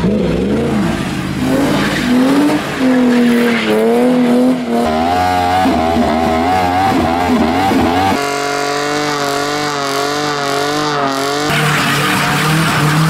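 A car doing a burnout: the engine held at high revs with its pitch wavering, and the tyres squealing against the tarmac.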